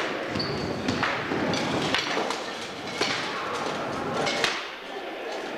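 Sparring sticks striking shields and armour: about five sharp, separate hits spread across a few seconds.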